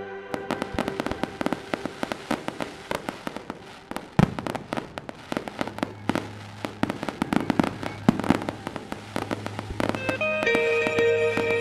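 Fireworks bursting: a dense run of sharp cracks and pops, with a louder bang about four seconds in. Music with sustained notes comes in near the end.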